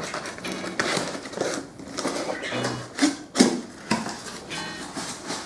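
Large cardboard box being opened by hand: tape and flaps pulled, cardboard scraping and rustling in uneven bursts, the loudest a little past three seconds in.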